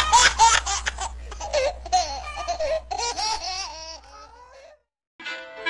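A young man laughing hard and loudly in rapid, pulsing bursts that die away toward the end, followed by a moment of silence.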